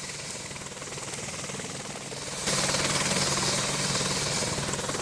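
Helicopter running, a fast, even rotor chop over a steady engine tone, which gets suddenly louder and hissier about halfway through.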